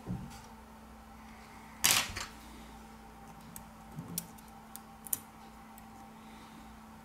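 Metal tweezers clicking and scraping against a smartphone's circuit board and frame during disassembly: one louder clack about two seconds in, then a few light ticks, over a faint steady hum.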